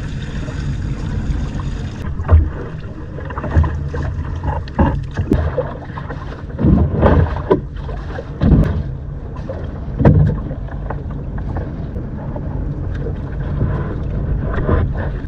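Small boat's engine running steadily, with several louder knocks and thumps over it.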